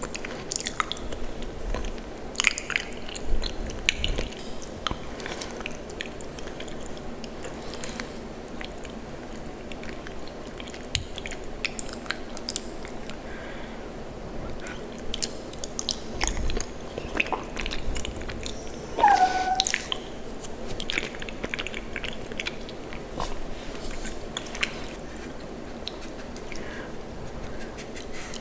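Close-miked chewing of macaroni and cheese: irregular wet mouth clicks and smacks over a steady low hiss. About two-thirds through comes a brief pitched sound that falls in pitch.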